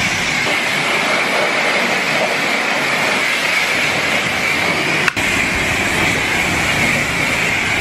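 Self-serve car wash pressure wand blasting a high-pressure jet of water onto a pit bike and into a truck's wheel well: a loud, steady spray hiss with a high whistling tone running through it. There is a single short click about five seconds in.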